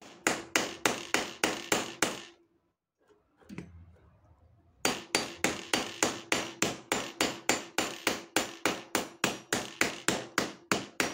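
Hammer striking the iron axle pin of a suitcase wheel in quick, even blows, about three to four a second, each with a short metallic ring. A run of about eight blows stops after two seconds, and after a pause the hammering resumes and keeps on steadily.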